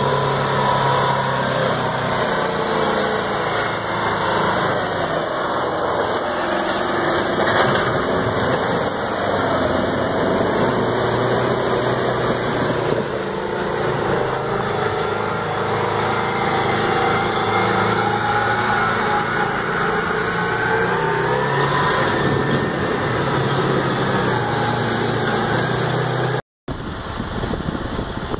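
Oshkosh M1070 tractor's diesel engine running under way, its revs rising and falling. The sound cuts out for a moment near the end, then a quieter engine sound takes over.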